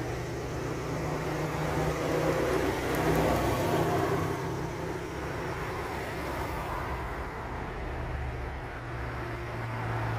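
Road traffic: a vehicle passes, its tyre and engine noise swelling to its loudest about three seconds in and then fading, over a steady low rumble.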